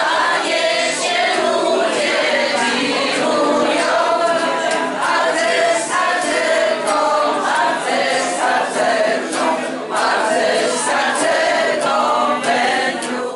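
A group of voices, mostly women, singing a song together, with a strummed acoustic guitar accompanying them.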